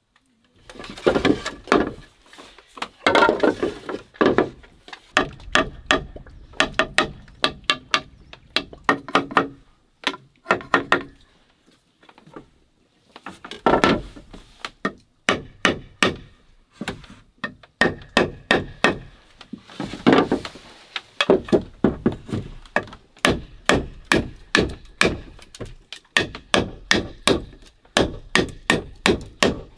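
Jungle knife chopping into a green bamboo pole: many sharp strokes, coming steadily at two or three a second in the last part. Louder clattering of bamboo being handled in the first few seconds.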